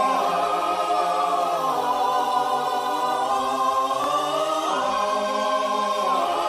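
Choir singing long held chords that shift to new chords twice.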